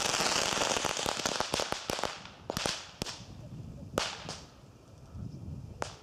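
Aftermath of a large cardboard-bodied firecracker's bang: the blast's reverberation fading out under a dense run of sharp clicks and cracks, which thin out to a few single cracks, the last one near the end.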